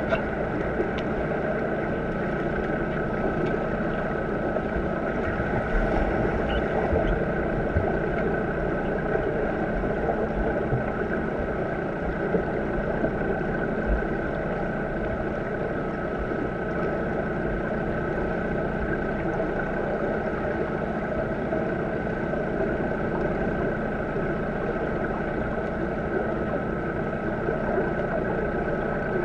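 Underwater pool sound picked up by a submerged camera: a steady mechanical hum with a couple of faint high tones, and a few short low thumps.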